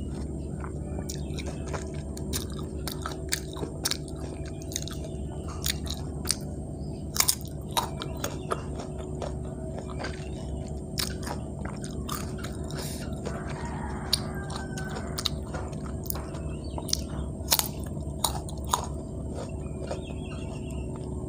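Close-up crunching and chewing of firm unripe green mango slices dipped in thick rujak sauce, with irregular sharp crunches as the fruit is bitten and chewed. A steady low hum runs underneath.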